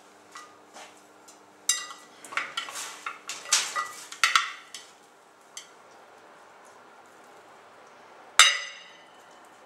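Metal utensil clinking and scraping against a glass baking dish while pork ribs are turned in it: a quick cluster of clinks in the first half, then one loud, sharp clink with a short ring near the end.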